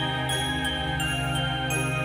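Background music: a melody of high notes stepping quickly over sustained lower tones.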